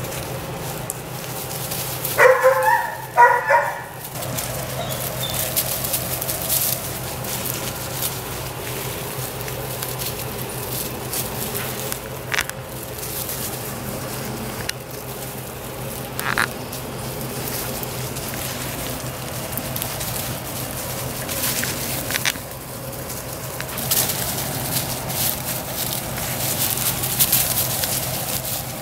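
Five-week-old Weimaraner puppies: a short burst of high puppy barks about two seconds in, then steady rustling and crackling of dry leaves and wood mulch as they play and dig.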